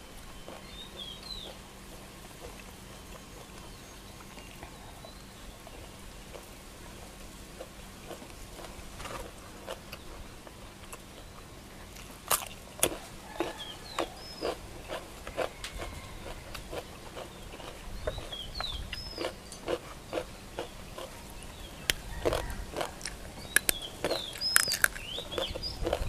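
Close-miked eating: a person chewing with wet lip smacks and sharp mouth clicks. It is quiet for the first half, then the smacks come thick and fast from about halfway on.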